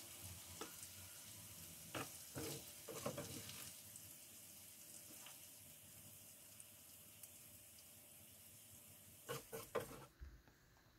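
Faint sizzling from a hot wok on the stove, slowly fading, with light clicks of chopsticks on a ceramic plate about two to three seconds in and a few more clicks near the end. The sizzle cuts off suddenly near the end.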